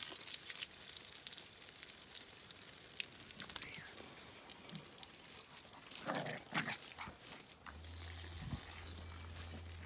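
Two small dogs, a terrier puppy and a larger tan dog, play-wrestling on grass: scuffling and rustling, with a couple of short vocal sounds from the dogs about six seconds in. A low steady hum comes in near the end.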